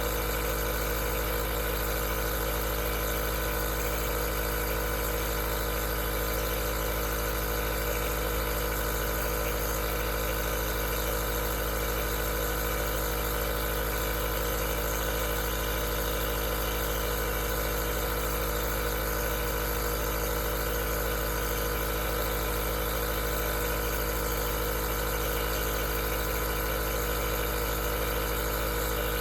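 Aerosol nebulizer's compressor running steadily: an even mechanical hum of several steady tones over a constant hiss.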